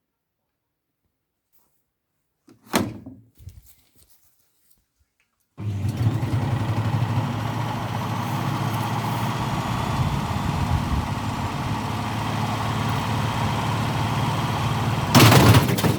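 A washing machine running with a heavy steel rail section in its drum: a steady mechanical running sound that starts abruptly several seconds in and gets louder, with rapid knocking, near the end. A single thump comes before it, about three seconds in.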